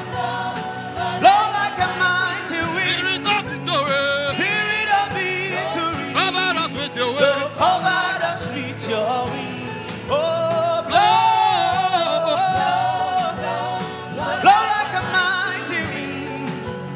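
Gospel worship song: a voice singing long, sliding held notes over sustained instrumental backing.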